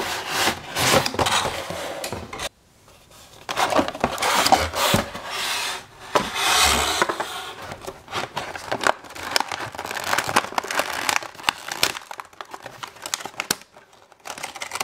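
Toy packaging and plastic toy pieces being handled: rustling and crinkling with frequent clicks and taps of hard plastic, pausing briefly about two and a half seconds in and thinning out near the end.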